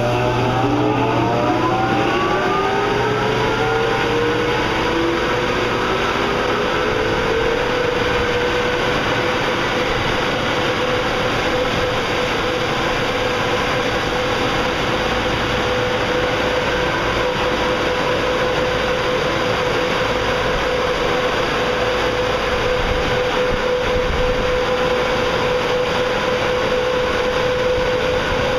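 Car wash's offboard high-velocity air dryers spinning up, their whine rising over the first several seconds, then running steadily with one constant tone over a loud rush of air. This is the final drying stage of the wash.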